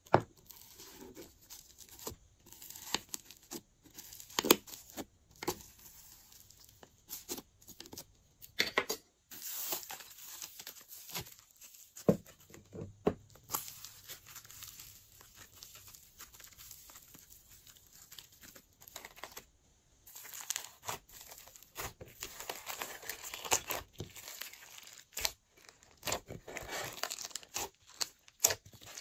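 Hands stretching, pulling and pressing slime: irregular sticky crackles, pops and tearing sounds, with a couple of brief pauses.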